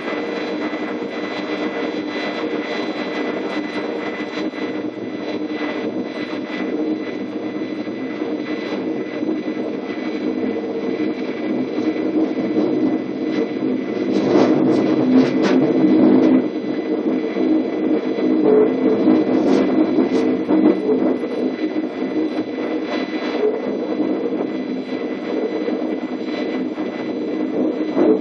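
DB Class 420 (ET420) electric multiple unit running, heard from the driver's cab: a steady hum of traction motors and gears over rolling wheel-on-rail noise. About halfway through it gets louder with clattering as the train crosses a set of points.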